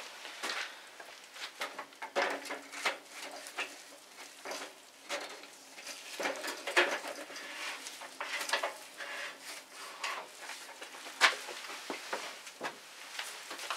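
Irregular clicks, knocks and rattles of plastic bottles and hand tools being handled while fork oil is tipped out of one bottle into another.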